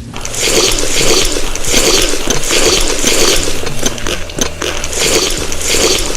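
Close-miked crunchy chewing of food, a crunch about twice a second.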